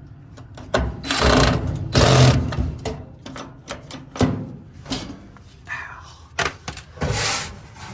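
Knocks, clicks and clatter of dryer parts and panels being handled during reassembly, with several short, louder noisy bursts.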